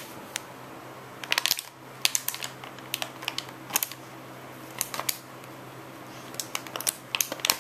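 A plastic water bottle crackling and crunching in irregular clusters of sharp clicks as a golden retriever chews on it.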